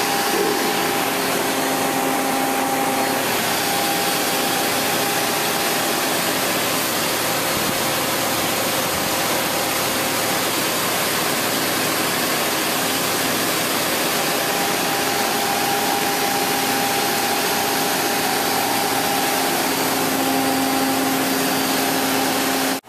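1997 Mazak QT20 CNC lathe running: a steady mechanical whir with a faint hum that fades in and out.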